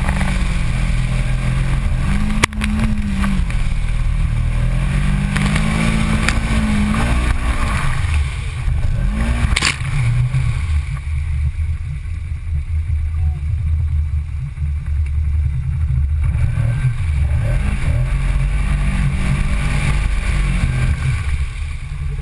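Side-by-side UTV engine running hard, its revs rising and falling again and again as it drives through mud and sand. A sharp knock comes about two and a half seconds in, and another near ten seconds.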